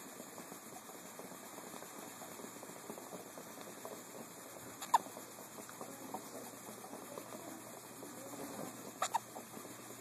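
Small hiccups: one sharp hiccup about five seconds in, then a quick double hiccup near the end.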